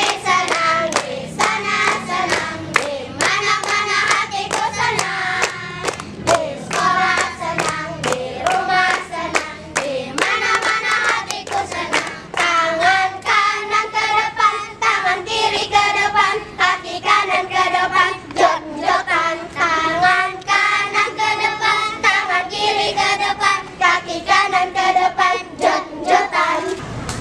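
A group of children singing a chant together, with rhythmic hand clapping through the song.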